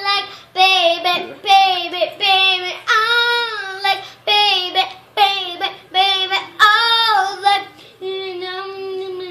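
A young girl singing unaccompanied in short phrases, ending on a held note.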